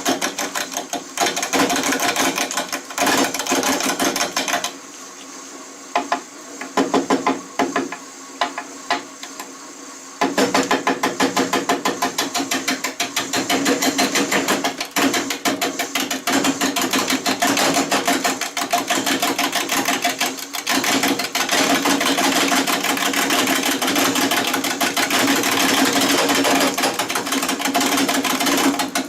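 Bowl gouge cutting into a large maple burl spinning on a Shopsmith lathe at about 375 RPM. The tool makes a fast, rhythmic knocking rattle as it strikes the uneven, interrupted surface of the burl. The knocking breaks off briefly about five seconds in and weakens for a couple of seconds, then runs steadily again from about ten seconds in.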